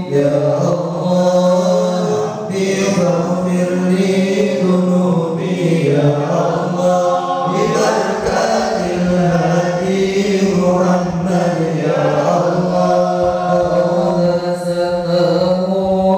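A group of voices chanting Arabic sholawat together in unison, in long held melodic lines without a break.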